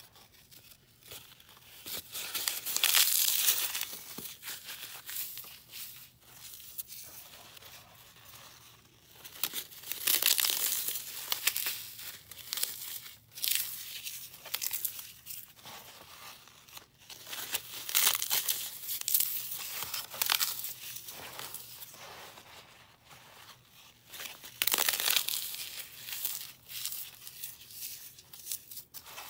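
Dry floral foam, dusted with gym chalk and baby powder, crunching and crumbling as hands squeeze and press broken chunks. The crackle comes in irregular bursts with quieter gaps between them.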